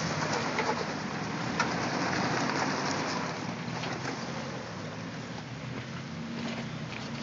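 Nissan 4x4 SUV crawling over rocks at low speed: its engine runs faintly under a steady crunching hiss of tyres grinding over gravel and boulders, with scattered sharp clicks of stones.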